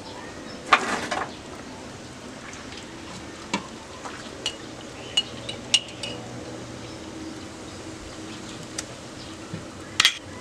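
A metal spoon clinking and scraping against a small glass jar as food is scooped out: a clattery burst about a second in, then scattered sharp clinks, some ringing briefly, with a louder double clink near the end.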